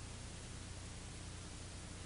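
Steady hiss with a low hum underneath, the recording's background noise; no distinct handling or packing sounds stand out.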